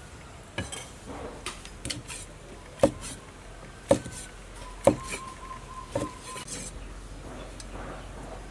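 Cleaver chopping cooked squid on a wooden cutting board: about six sharp chops, roughly one a second, the loudest near the middle. A faint high tone hangs on for about two seconds during the later chops.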